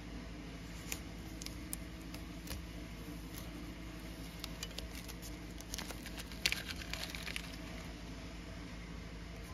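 Blue painter's tape being peeled off a freshly painted speaker and crumpled: scattered crackles and rustles, busiest with the loudest crinkle about six and a half seconds in, over a steady low hum.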